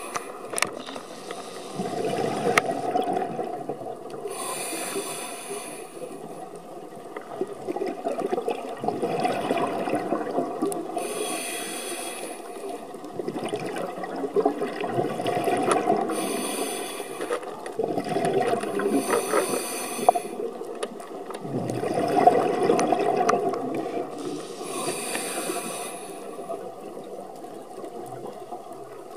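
A scuba diver breathing through a regulator underwater: short hissing inhalations alternate with longer gurgling rushes of exhaled bubbles, about five breaths in a slow, regular rhythm.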